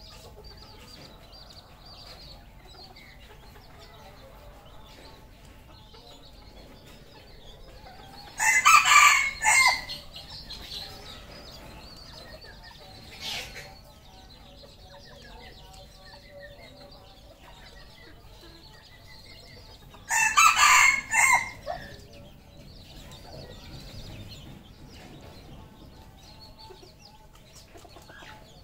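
Red junglefowl crowing twice, about twelve seconds apart, each a short crow of about a second and a half, with faint clucking and chirps between.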